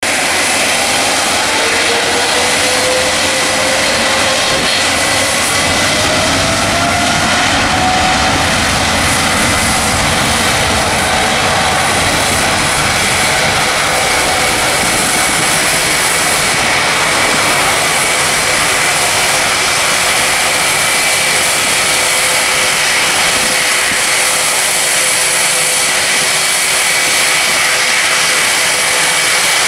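Boeing 777's twin jet engines spooling up for takeoff: a whine rising in pitch over the first several seconds, then running steadily at takeoff power, a loud even jet noise with a high whine, as the aircraft rolls down the runway.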